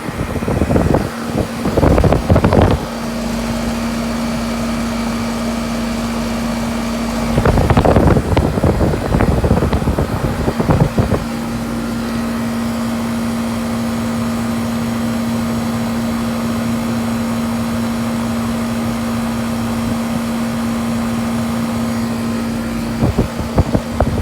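2005 Goodman 4-ton central air-conditioner condensing unit running: a steady hum under the rush of its fan. Louder, irregular rushing bursts come three times: about a second in, around eight to eleven seconds, and near the end.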